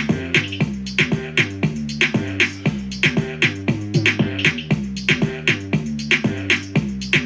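Music played through a Goodmans Bluetooth outdoor rock speaker: an instrumental stretch of a Latin pop song with a steady drum beat of about four strikes a second over sustained bass and chord notes, with no vocals.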